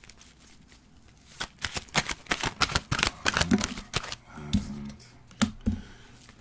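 A tarot deck being shuffled by hand: a quick, dense run of card flicks and snaps starts about a second and a half in and lasts about two and a half seconds. A few separate taps follow as cards are laid down on the desk.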